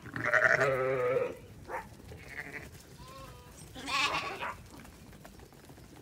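Zwartbles sheep bleating: two long, wavering bleats, one at the start and one about four seconds in, with shorter, fainter calls between.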